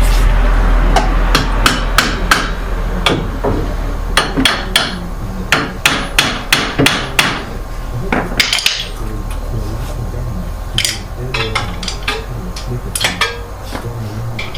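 Hammer striking metal suspension parts during a car strut replacement: about twenty sharp blows in irregular runs of several strikes, with a short scrape about eight seconds in.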